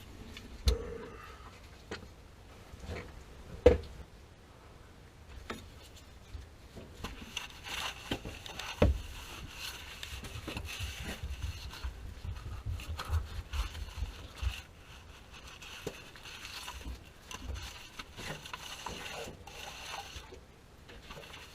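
Hand work on a water heater's plumbing: scattered knocks and clicks of tools and fittings being handled, with a stretch of scraping in the middle.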